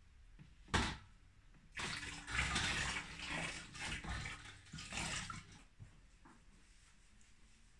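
A sharp plastic knock about a second in, then sanitizing solution sloshing and splashing inside a plastic fermenter bucket as its lid is dipped and swished through it for a few seconds.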